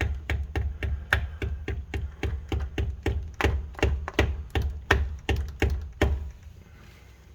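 Rapid light taps, about four a second, driving a new rear main seal into the back of a Honda Civic engine block; the tapping stops about six seconds in.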